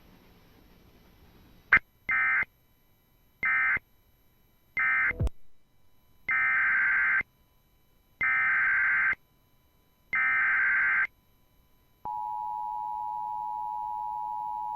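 Emergency Alert System digital data bursts: after a sharp click, three short screeching bursts (the end-of-message code closing the previous alert), then three longer bursts (the SAME header opening the next alert). About twelve seconds in, the steady two-tone EAS attention signal begins.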